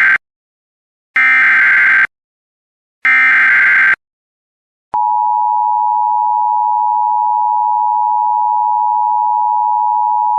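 Emergency Alert System SAME header data bursts, short harsh buzzing chirps about a second long with gaps between them, followed about five seconds in by the steady two-tone EAS attention signal, which holds without a break.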